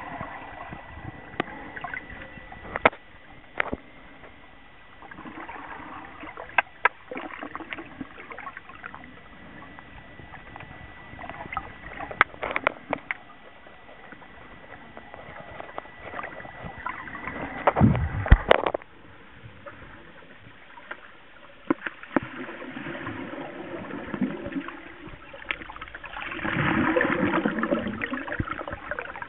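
Underwater sound picked up by a submerged camera: muffled water noise with scattered sharp clicks and knocks, and a faint steady high tone that stops about 18 seconds in. There is a louder low rush of water about 18 seconds in and a swell of bubbling near the end.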